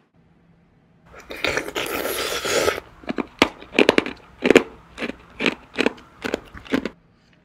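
Close-up chewing of frozen fruit. About a second in there is a dense stretch of crunching lasting about two seconds, then a quick run of sharp crunches, about four a second.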